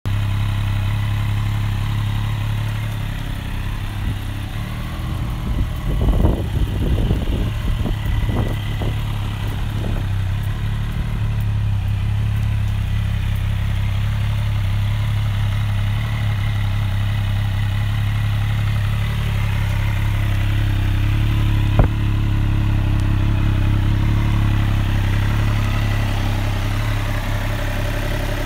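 Triumph Daytona Moto2 765's three-cylinder engine idling steadily through an Arrow exhaust, with a few short revs about six to ten seconds in. A single sharp click comes later.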